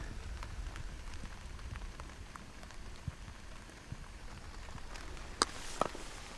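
Faint steady outdoor hiss with scattered small ticks, like a light patter, and two sharper clicks about five and a half seconds in.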